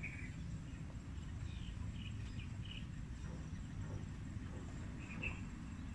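Young chicken giving a few faint, short peeps, in small clusters, over a low steady background rumble.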